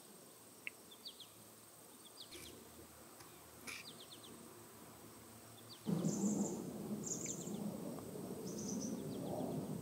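Forest ambience: small birds give short, quick chirps and trills over a faint background. About six seconds in, a louder, even rushing background noise comes in suddenly, with higher chirps above it.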